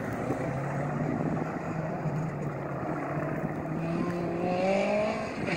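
Grumman G-73 Mallard twin-engine amphibian droning in the distance as it climbs away after takeoff, a steady low engine hum mixed with wind rumble. From about four seconds in, a second engine sound joins, rising steadily in pitch.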